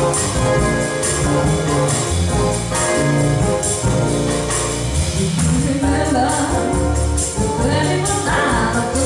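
A small Cuban band playing live, with grand piano, bass and a tambourine shaken in rhythm. A woman's voice starts singing over it a little past halfway.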